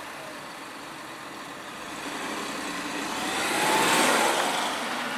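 Citroën C4 with the 1.2 PureTech 130 three-cylinder turbo petrol engine driving past, growing louder to a peak about four seconds in as it goes by, then easing off.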